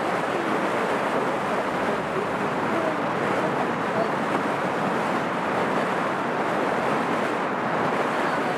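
Steady rushing noise of a cruise boat under way: engine and water along the hull mixed with wind on the microphone, even throughout.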